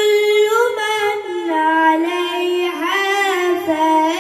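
A reciter's high voice chanting the Quran in melodic tajwid style, holding long, ornamented notes whose pitch slides and wavers with melismatic turns.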